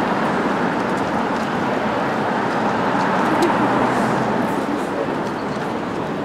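City street ambience: steady traffic noise.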